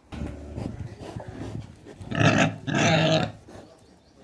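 Pigs grunting, then two loud, harsh squeals about two seconds in.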